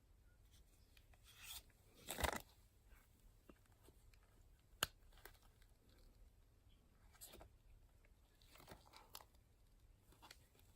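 Faint handling noises: a few short rustles and scrapes, the loudest about two seconds in, and one sharp click about five seconds in.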